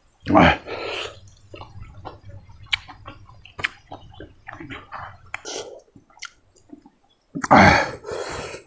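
Close-up eating sounds: wet chewing and small lip smacks, with a loud slurp about half a second in and a longer slurp near the end.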